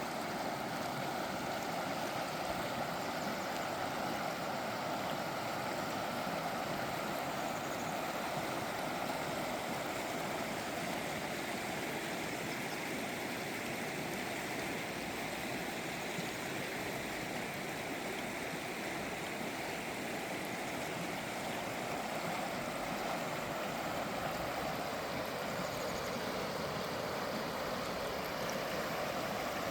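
River water flowing past rocks: a steady, unbroken rush of moving water.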